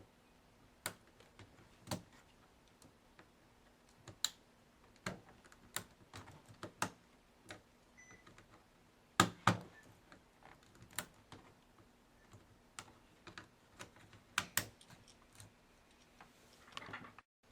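Irregular sharp plastic clicks and taps from a laptop keyboard as a flat screwdriver pushes in its retaining tabs and the keyboard is worked loose. The loudest is a pair of clicks about nine seconds in, and a short scrape comes near the end.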